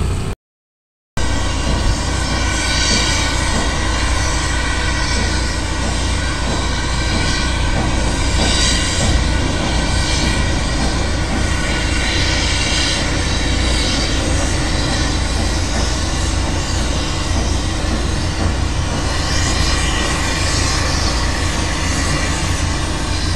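Steady vehicle engine and road noise with heavy wind rumble on the microphone while travelling along, with a brief dropout to silence just after the start.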